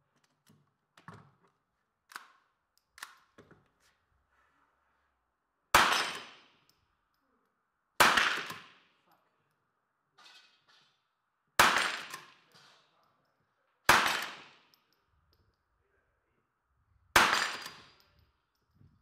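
Five .22 rimfire rifle shots fired at an uneven pace, two to three and a half seconds apart, each echoing for about a second. Fainter clicks and knocks come in the first few seconds and between the shots.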